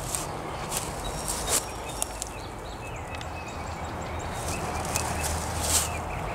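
Footsteps crunching through dry grass and dead leaves, a few irregular steps with a pause in the middle.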